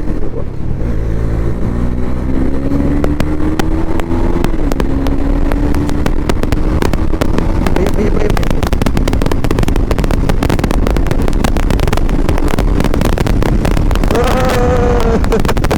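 Motorcycle engine running under way, its pitch rising steadily as the bike accelerates over the first few seconds, then holding steady at cruising speed, with wind buffeting the microphone throughout. A brief wavering tone sounds near the end.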